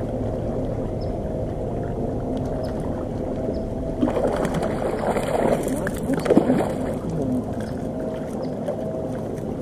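A bass boat's electric trolling motor hums steadily, with several held tones. From about four to seven seconds in, a louder rushing, splashing noise with clicks rides over the hum.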